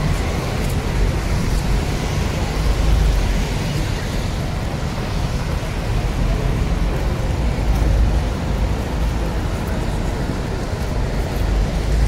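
Steady street traffic: cars and a double-decker bus running past a busy junction, an unbroken low rumble with road noise.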